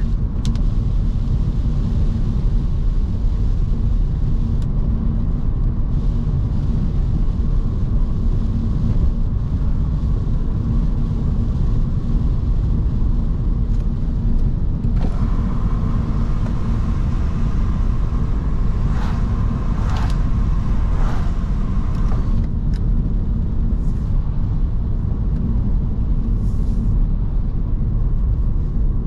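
Audi S5's 4.2 V8 engine and tyres on a wet road, heard as a steady low drone from inside the cabin while cruising. A higher hum with a few short swishes joins for several seconds past the middle.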